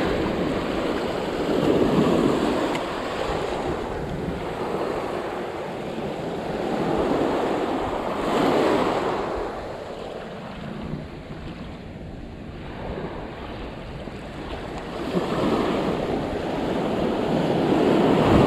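Surf washing onto the beach, swelling and fading every several seconds as waves break, with wind buffeting the microphone.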